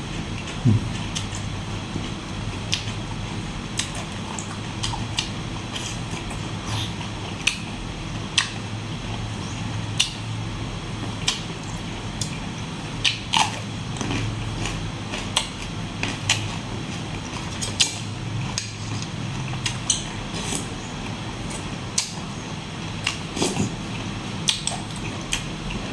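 Close-miked chewing and biting of squid salad, with irregular sharp mouth clicks about once a second over a steady low hum.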